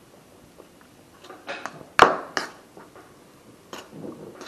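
A small knife stirring wet cut beef in a bowl: scattered clicks and scrapes of the blade against the bowl, the loudest a sharp knock about two seconds in.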